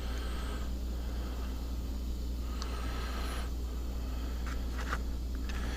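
Steady low background hum, with a few faint small clicks of metal parts being handled.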